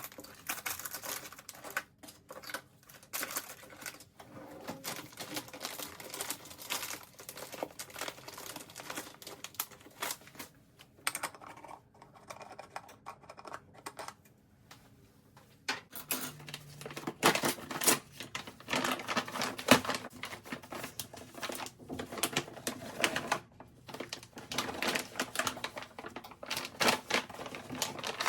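Rapid, irregular clicking and tapping of small hard objects, quieter for a few seconds in the middle, then with several louder knocks.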